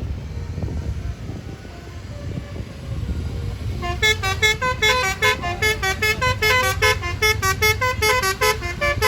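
Low vehicle rumble, then about four seconds in a bus's Basuri telolet horn starts playing a fast tune of short stepped notes, jumping up and down in pitch several times a second.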